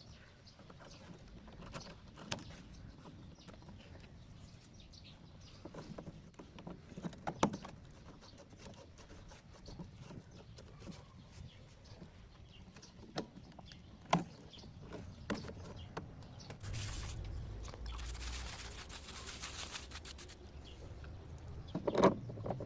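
Scattered clicks and knocks of hand tools and metal parts being handled while a top-load washing machine's gearbox is taken apart, with a cluster of louder knocks near the end. In the second half there are a few seconds of steadier rustling noise.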